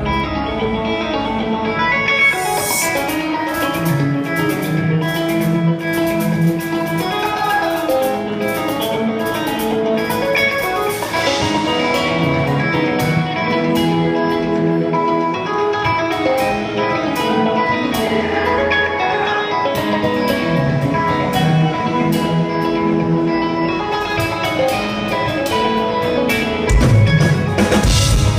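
Live instrumental progressive metal band playing in a club: melodic, clean-toned eight-string electric guitar lines over bass and drum kit, heard from the audience. Cymbal crashes break in a few times, and the band comes in louder and heavier near the end.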